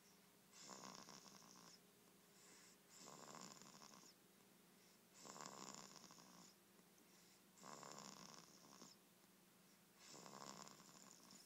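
A young girl snoring softly in her sleep: about five slow snoring breaths, each lasting about a second, one every two and a half seconds.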